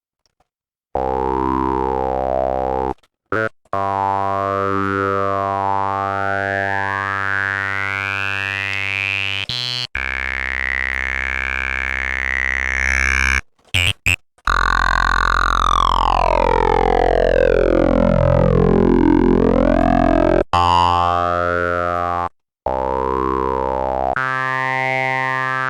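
Formant oscillator synthesizer playing sustained low notes, a resonant peak sweeping up and down through the harmonics so the tone takes on a vowel-like, speech-like quality. It comes as several held notes with short gaps, and in the middle a longer note has pitches gliding down and back up.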